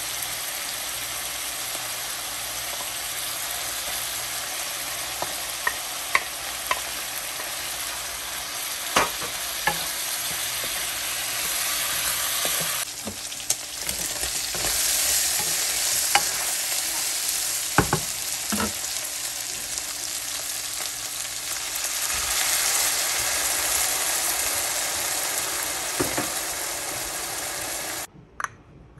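Goat mutton sizzling in a frying pan while it is stirred with a wooden spatula, with scattered sharp knocks of the spatula against the pan. The sizzle grows louder about halfway through and cuts off suddenly near the end.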